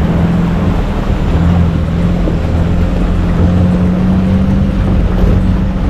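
4x4 off-road vehicle's engine running with a steady drone while driving, over rough wind and tyre noise.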